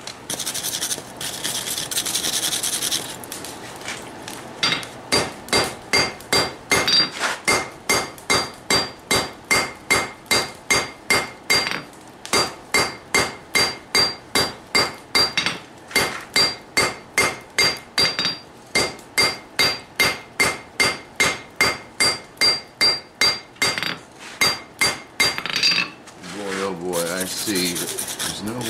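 Hand hammer blows on hot steel over an anvil, about two a second with a few short pauses, each strike ringing off the anvil, as the blacksmith squares up the forge-welded billet. A few seconds of scratchy hissing come first.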